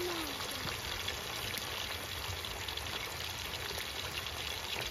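Liver and kidneys sizzling steadily in hot oil in a frying pan.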